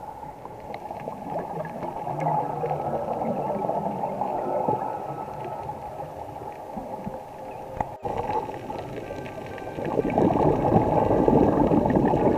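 Scuba divers' exhaled bubbles gurgling and rushing, heard underwater through a camera housing, muffled. The sound cuts out for an instant about eight seconds in, then comes back louder.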